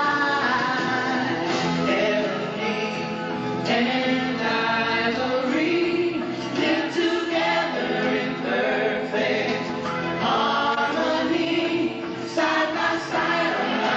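A choir singing a gospel-style song together, several voices holding and moving between notes without a break.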